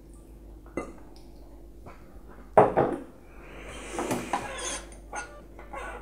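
Small clinks and knocks of watercolour painting gear, the loudest about two and a half seconds in, and a rustle around four seconds as the sheet of watercolour paper is shifted on the table.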